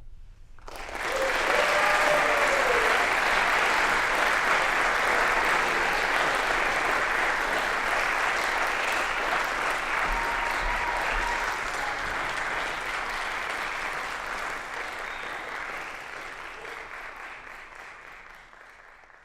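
Concert-hall audience applauding at the end of a solo bassoon piece. The clapping breaks out about a second in, holds steady, then thins and fades away over the last several seconds.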